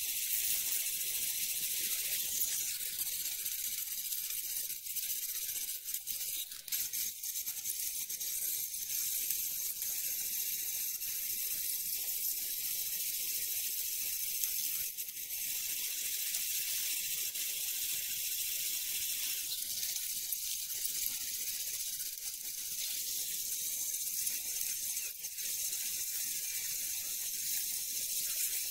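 Steady high hiss with a few faint clicks, the sound track of a time-lapse running at 32 times normal speed.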